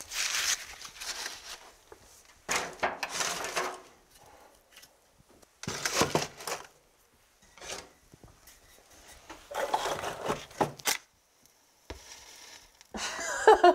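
Split firewood logs being handled and stacked in a fireplace, in several separate bouts of wooden knocking and scraping. Near the end a match is struck.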